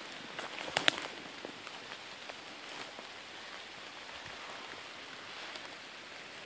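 Footsteps crunching and rustling through dry straw and leaf litter, with a few sharp twig-like cracks about a second in, over a steady hiss.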